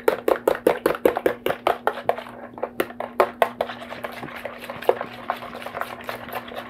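Wire whisk beating two eggs in a plastic container: a quick, even clicking of the whisk against the sides, about five strokes a second, growing lighter after about two seconds.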